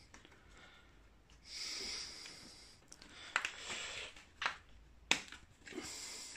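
Faint handling noise: a few sharp clicks and knocks, with a couple of short breathy hisses. No machine is running.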